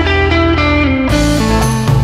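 Background rock music led by electric guitar, with a steady bass line and beat.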